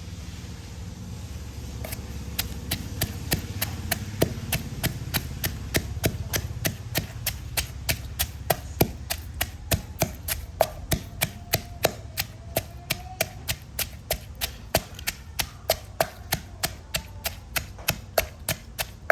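A pestle pounding in a mortar, a steady run of knocks at about three strokes a second that starts about two seconds in, pounding ingredients fine.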